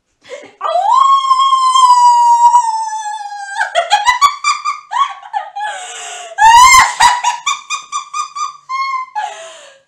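A person imitating a wolf howl, one long high call held for about three seconds that falls away at the end, followed by bursts of high-pitched laughter.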